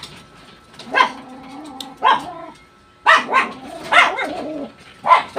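A dog barking repeatedly, about five short barks roughly a second apart.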